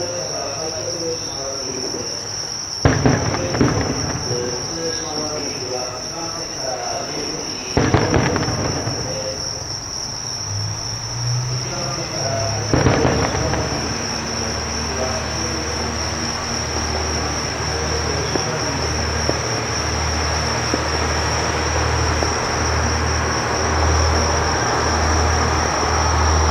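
Crickets and other insects chirping in a steady high trill, with three fireworks shells bursting as sudden bangs about five seconds apart in the first half. From about halfway a Joso Line diesel railcar's engine runs with a low pulsing hum, growing louder near the end as the train pulls out.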